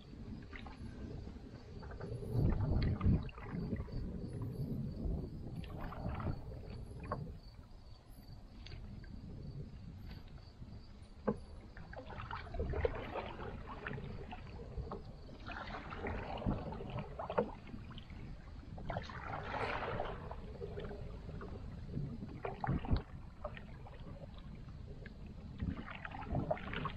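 Canoe paddles stroking through the water: a splash and drip every few seconds, with a few short sharp knocks.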